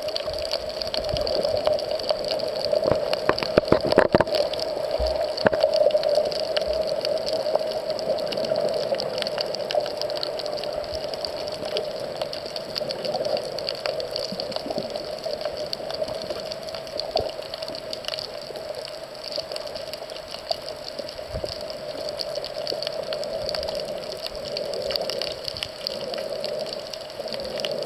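Underwater ambience picked up by a camera while snorkeling: a steady, muffled water rush with scattered faint clicks and crackles, and a cluster of louder knocks about three to four seconds in.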